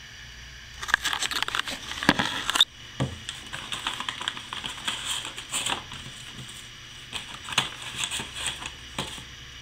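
A paper packet being handled and opened, rustling and crinkling: a dense burst of crinkling about a second in, then lighter, scattered crinkles and small clicks.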